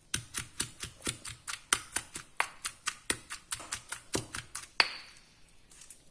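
Stone pestle pounding in a stone mortar, about five quick knocks a second as it strikes through onions, garlic, chillies and fried anchovies to make a spice paste. The pounding stops about five seconds in on one of its loudest knocks.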